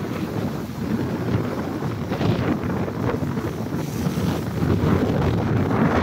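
Wind buffeting the microphone over sea waves breaking and washing against rock boulders, growing louder toward the end.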